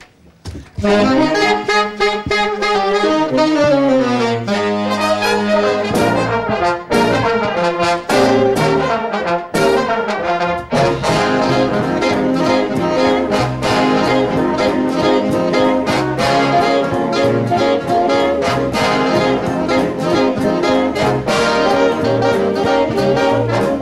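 Big band playing jazz live, with trumpets, trombones and saxophones to the fore; the band comes in abruptly about a second in.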